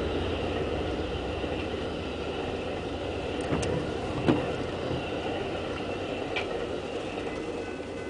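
Amtrak Superliner passenger cars rolling past, a steady rumble of wheels on rail that slowly fades as the end of the train goes by, with a few sharp clicks. Heard from inside a car.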